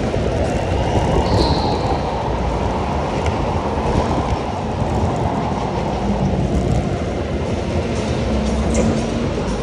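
Go-kart driving at speed, heard from the driver's seat: a loud, steady rumble of tyres, drive and air rushing past the microphone, with a brief high squeak about a second and a half in.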